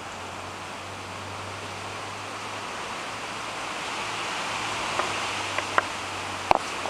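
Bees in a hive at night making a steady, even hum that grows louder as the microphone moves closer, with a few sharp clicks in the last couple of seconds.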